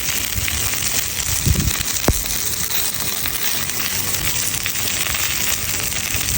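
Sausages frying with a steady sizzle, and a sharp click about two seconds in.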